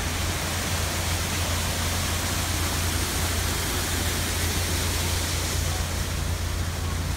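Water rushing through the open paddles of a canal lock gate into the lock chamber as the lock fills, a steady, unbroken rush of white water.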